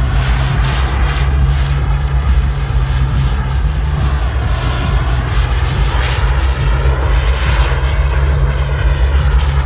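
JetCat P300 Pro turbine of a large RC model jet running in flight. Its hissing whine swells and fades several times, sweeping up and down in pitch as the jet passes back and forth overhead.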